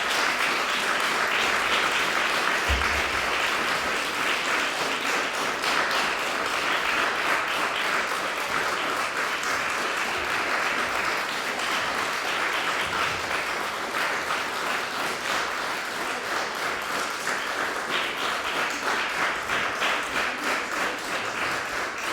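Audience applauding steadily, easing off slightly and growing more scattered in the second half.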